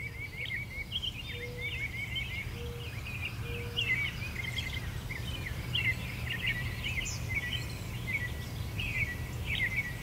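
Small birds singing in quick chirps and trills over a steady low rumble, with a few short, low whistled notes between about one and four seconds in.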